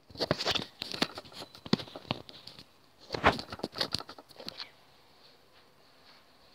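Handling noise from the recording phone: a run of knocks, taps and cloth rustling against the microphone as it is moved and set in place, stopping about two-thirds of the way through and leaving faint room tone.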